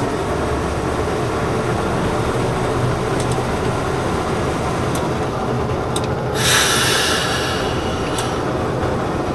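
Train running on the rails, a steady rumble with a few sharp clicks. A burst of hissing comes about six and a half seconds in and lasts about a second.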